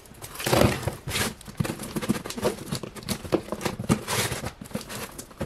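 A cardboard box being opened: scissors cutting the packing tape, then tape and cardboard flaps rustling and scraping, with small knocks from the box being handled.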